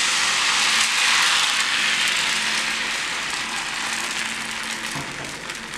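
Rice batter sizzling in a hot, oiled appam pan, a steady hiss that slowly fades as the pan is swirled to spread the appam.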